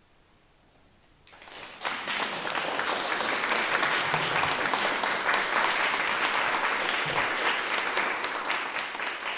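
Near silence for about a second, then a small audience breaks into applause, building quickly and holding steady.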